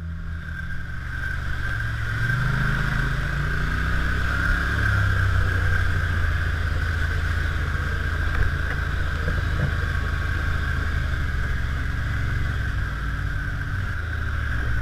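ATV engine running while riding on a trail, its pitch shifting a few times as the throttle changes, with a steady high whine over it.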